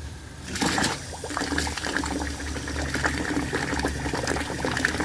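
Steam injector on a fire-tube boiler running without picking up: steam and water hissing and gurgling out of it as it sucks water from a bucket. It is failing because a valve on its line has been left shut. The sound starts about half a second in and then holds steady with a constant crackle.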